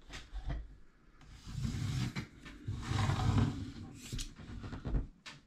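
Handling noise from a laptop being slid and turned around on a wooden table: rubbing scrapes with low thuds, two longer stretches in the middle, and a few sharp knocks, the last one near the end.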